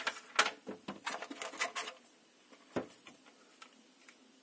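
Clear plastic blister tray of spare earbud tips being pulled out of a box's foam insert and handled: a quick run of plastic crinkles and clicks, then a single click a little later.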